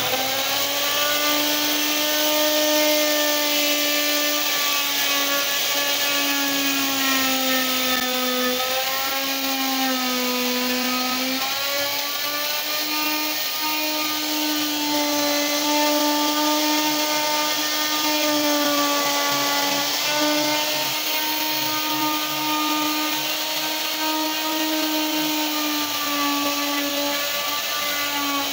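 Handheld electric plunge router running steadily with a high whine while its bit cuts into wood, routing a carved pattern. The pitch wavers and sags as the bit takes load, most clearly about eight to eleven seconds in.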